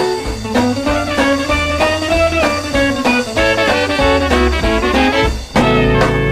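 Bakersfield-style honky-tonk country band playing an instrumental guitar passage with no vocals. About five and a half seconds in the music dips briefly, and a new passage begins with drums and a steady bass.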